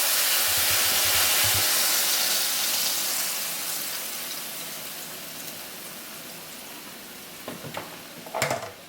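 Hot oiled pan sizzling loudly as food goes in, the hiss fading steadily over several seconds. A couple of light knocks near the end.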